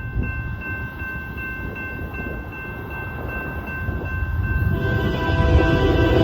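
Railroad crossing bell ringing steadily over a low rumble; about two-thirds of the way in, the approaching Canadian Pacific freight locomotive's air horn starts blowing and keeps going.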